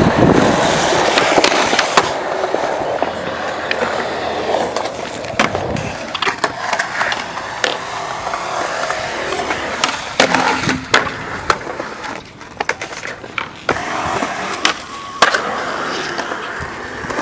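Skateboard wheels rolling over concrete with a steady rumble, broken several times by sharp clacks of the board hitting the ground.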